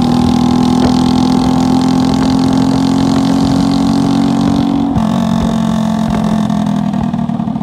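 A vehicle engine running steadily at speed, with a dense noisy rush over it. Its pitch eases down slightly about five seconds in.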